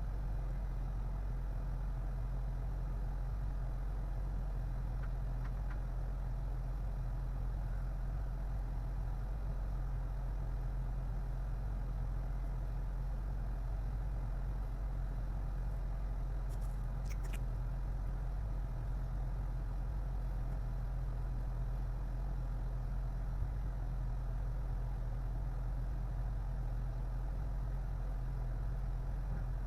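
Steady low hum that starts abruptly and holds unchanged.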